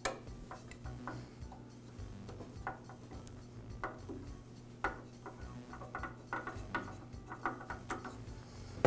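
Scattered light clicks and taps of hand tools and the plastic belt cover of a Porter-Cable thickness planer as the cover is worked off.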